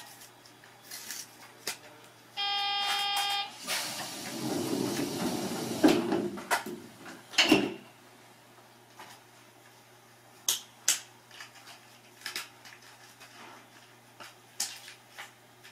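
A train standing at a station: a steady horn-like tone about two seconds in, lasting about a second, then a few seconds of hissing with several knocks and clunks, then only faint scattered clicks.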